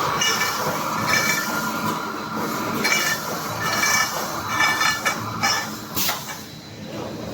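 Wire mesh panel welding machine running, with repeated short high-pitched sounds about a second apart over a steady mechanical din. A sharp hit comes about six seconds in, and the running is quieter after it.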